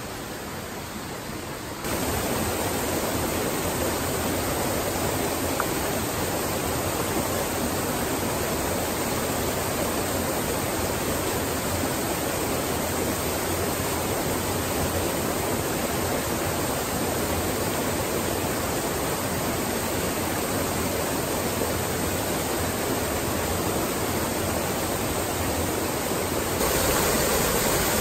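Water rushing over a small waterfall on a woodland stream: a steady noise that steps up in level about two seconds in and again near the end.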